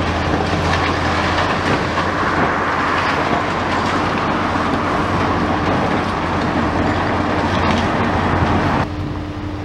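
High-reach demolition excavator at work: a steady engine drone under a dense crunching and rattling as its attachment breaks into concrete and debris clatters down. The crunching and clatter stop abruptly near the end while the engine drone carries on.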